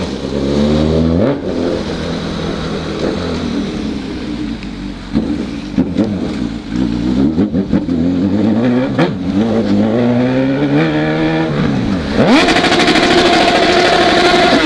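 Honda CB1000 motorcycle's inline-four engine revving hard under acceleration. Its pitch climbs and drops back several times through gear changes, then it holds a loud, high-revving pull for the last few seconds.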